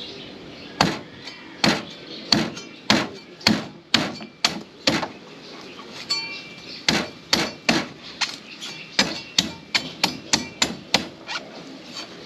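A machete chopping again and again into the fibrous husk of a young green coconut, about twenty sharp hacks at roughly two a second with a brief pause midway. The blade is still cutting through husk and has not yet reached the shell.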